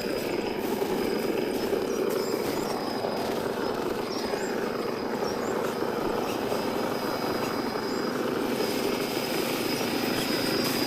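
Scale RC crawler's electric motor and gear drivetrain whining steadily as it drives, with a thin high steady tone above the gear noise.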